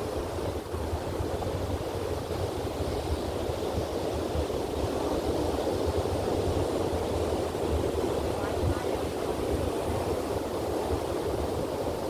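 Ocean surf washing in steadily, with wind buffeting the microphone in a low rumble.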